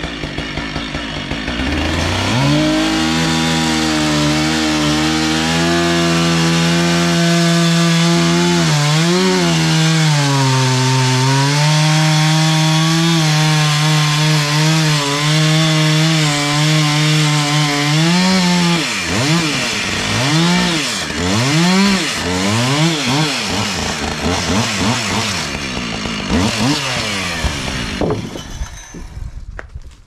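Gasoline chainsaw revving up and cutting across a squared pine cant, its engine note dipping under load in the middle of the cut. In the last third the pitch swings up and down repeatedly, then the saw drops off near the end.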